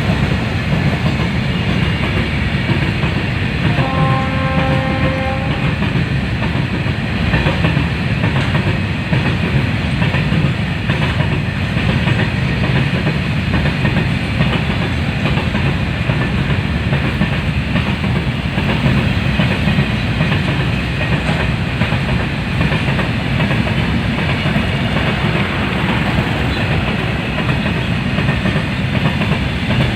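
Freight train of BCN covered wagons rolling past, a steady rumble with wheels clattering over rail joints. A brief horn tone sounds about four seconds in.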